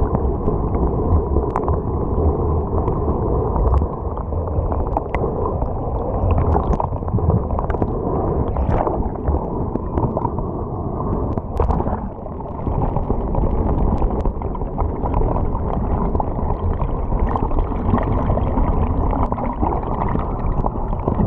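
Muffled sound of moving surf heard by a camera underwater in shallow sea: a steady, dull wash of churning water with scattered faint ticks.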